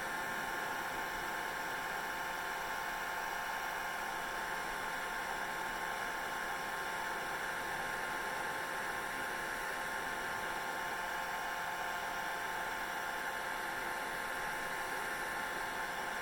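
Hair dryer running steadily: an even rush of air with a constant motor whine.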